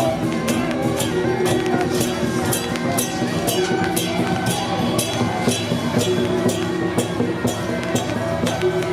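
Music with frequent, irregular drum and percussion strikes over sustained melody notes.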